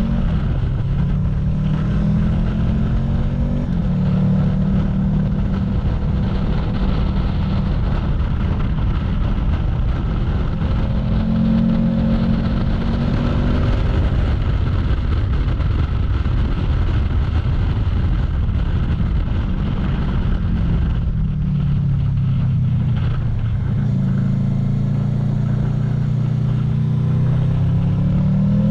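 Honda VFR800F's V4 engine heard from the bike, its pitch rising and falling with the throttle, dropping low about three quarters of the way through and then climbing again, over steady wind and road noise.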